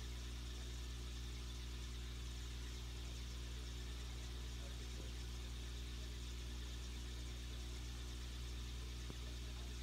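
Aquarium equipment running: a steady low electric hum with an even hiss over it, such as an air pump driving the bubble stream in the tank.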